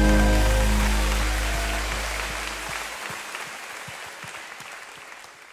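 A worship band's final chord rings out and dies away while the congregation applauds, the clapping growing clearer as the music fades. Everything then fades steadily out.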